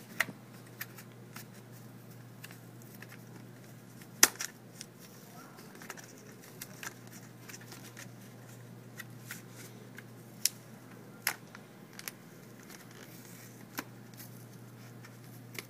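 Hard plastic clamshell packaging being handled and pried open: scattered sharp plastic clicks and crackles, the loudest about four seconds in, over a steady low hum.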